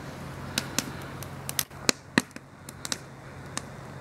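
Campfire of wet wood crackling, with sharp irregular pops, several a second at times, some much louder than others. A steady low hum underneath fades out about halfway through.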